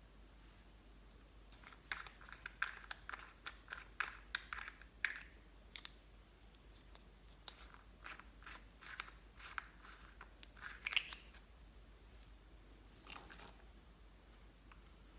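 Slime being squeezed and poked by hand, making a run of small sticky clicks and crackles, then a brief rustle near the end.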